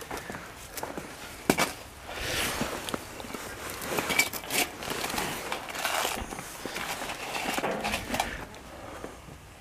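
Footsteps crunching on snow, an uneven run of crunches and scuffs with a few sharp clicks.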